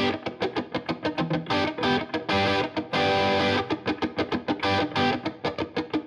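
Intro music: a distorted electric guitar playing fast, rapidly picked notes with a few held chords.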